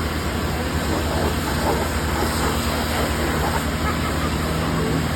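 Backhoe diesel engine running steadily with an even low hum.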